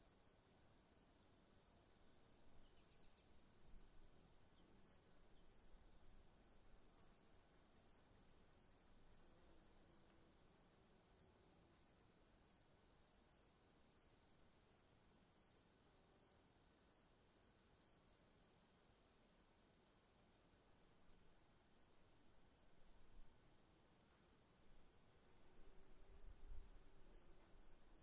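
Faint insect chirping, short high chirps repeating several times a second over a steady high whine.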